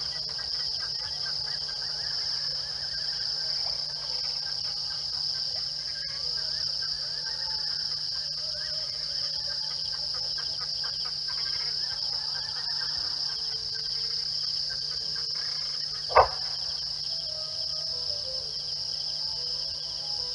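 Steady high-pitched chorus of crickets, with faint scattered chirps and calls beneath it and a low steady hum. About sixteen seconds in comes a single brief loud knock.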